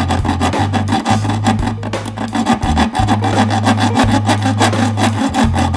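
A saw blade cutting through the car's sheet-steel firewall, a quick unbroken run of rasping strokes.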